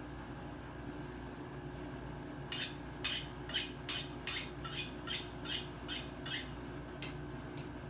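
A steel knife scraping in about nine quick strokes, roughly two a second, over a steady low background hum.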